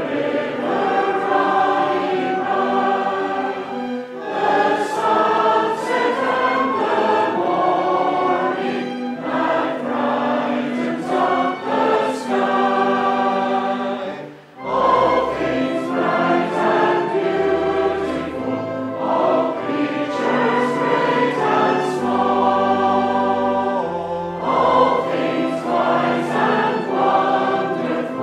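A hymn sung by many voices in chorus with instrumental accompaniment, moving in long held phrases. It breaks off briefly about halfway through, then picks up again with deep bass notes under the voices.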